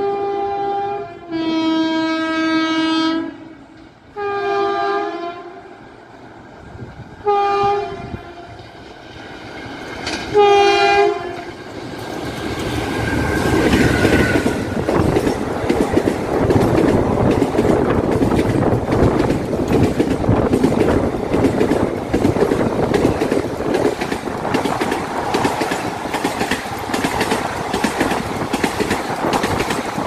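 An Indian Railways WAP-4 electric locomotive's air horn sounds a long two-pitch blast and then three shorter blasts as the express approaches. The train then passes, a loud rolling rumble with a steady clickety-clack of wheels over rail joints as the coaches go by.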